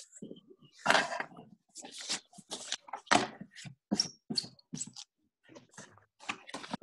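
Irregular clicks and taps from a computer keyboard and mouse, a few to several a second.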